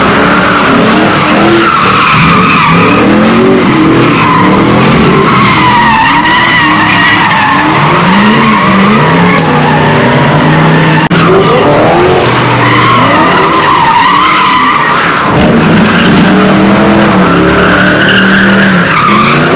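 Cars doing donuts and burnouts: engines revving hard up and down at high revs while the tyres squeal continuously against the pavement.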